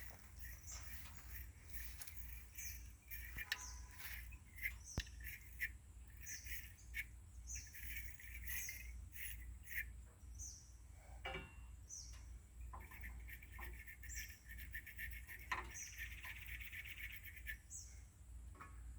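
Birds chirping in short scattered calls, with a longer buzzy trill in the second half, over a low steady hum.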